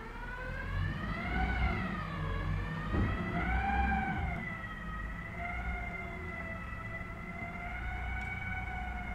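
Rear-loading garbage truck working at the kerb: a low diesel engine rumble under a whining tone from its hydraulics that rises and falls twice, then holds steady. A single knock comes about three seconds in.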